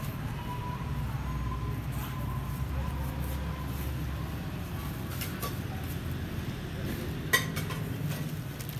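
Street food stall ambience: a steady low background rumble with a few light clinks of utensils and one sharp knock about seven seconds in.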